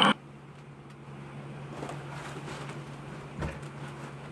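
Music cuts off abruptly right at the start, leaving quiet room tone with a steady low hum and one faint bump about three and a half seconds in.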